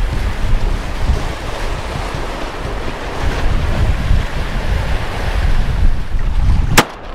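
Waves and surf washing over wind buffeting the microphone, with a rumbling low end. A single sharp crack sounds near the end.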